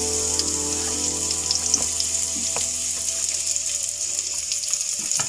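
Chopped onion frying in sesame oil, sizzling steadily in a frying pan, with a few faint taps of a knife on a wooden cutting board.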